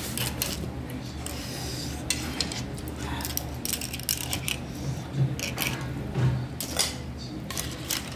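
Metal chopsticks and tableware clinking and tapping against bowls while eating: scattered light clicks, a few at a time, over a steady low hum.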